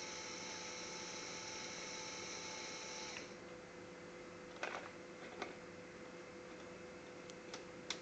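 Small Lego Technic electric motor running, with a faint steady whine through its plastic gear train as it lowers the flatbed's tilt arm, and stopping about three seconds in. Afterwards come a few sharp plastic clicks of Lego parts being handled.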